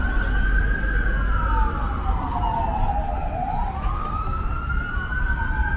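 Emergency vehicle siren wailing slowly, its pitch falling over about three seconds and then climbing back up, over a low steady rumble.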